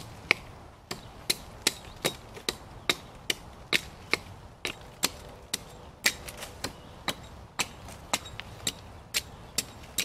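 Hatchet chopping into a standing tree trunk, stripping a band of bark to girdle the tree: a steady series of sharp strikes, about two or three a second.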